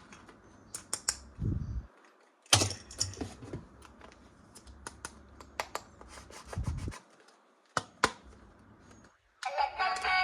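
Plastic toys and packaging being handled: scattered sharp clicks, taps and short rustles, the sharpest click about two and a half seconds in. Music starts near the end.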